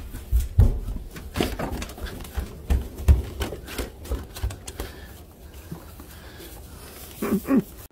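Irregular knocks and clicks of footsteps and a dog being handled as it is led by the muzzle across a tiled floor and onto a wooden deck, with a dog's two short whines near the end.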